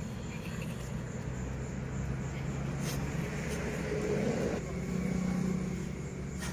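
Steady low hum over faint, even background noise, with a slight swell about two-thirds of the way through.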